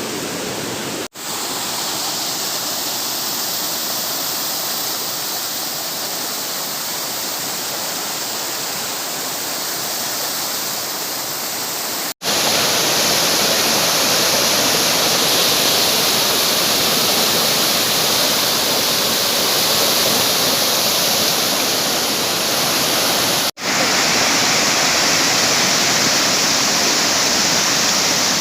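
Waterfall rushing, a dense, even noise of falling water, broken three times by a brief dropout where the recording cuts; it is a little louder after the middle cut.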